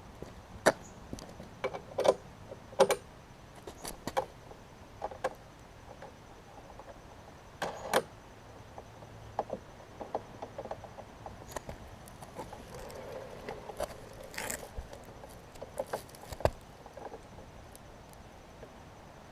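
Scattered sharp clicks, clinks and short scrapes as a push mower's metal handle and its fasteners are handled and fitted by hand.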